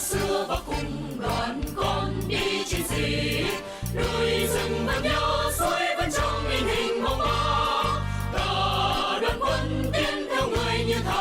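A choir singing a Vietnamese song with instrumental accompaniment.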